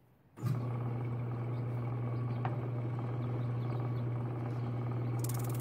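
Shop-built drum sander's electric motor, a loud steady hum that sets in suddenly about half a second in and runs on evenly. Near the end a high hiss joins it as the plywood piece meets the sanding drum.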